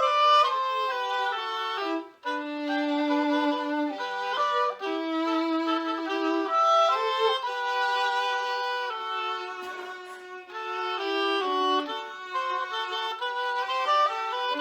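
Classical duet of two melody instruments playing interweaving lines, with a brief break about two seconds in.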